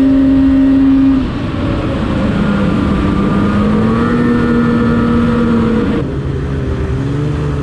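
Polaris Switchback Assault snowmobile's two-stroke engine, heard from the rider's seat. It runs steady at speed, eases off a little over a second in and holds a lower pitch that creeps up, then drops again near the end as the sled slows.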